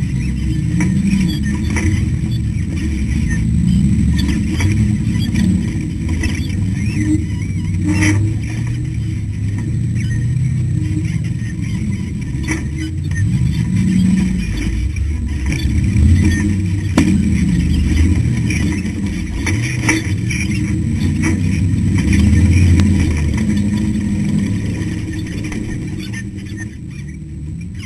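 Ultra4 rock-racing car's engine heard from inside the car, its revs rising and falling unevenly as it crawls over rocks. A few sharp knocks from the chassis and suspension break through.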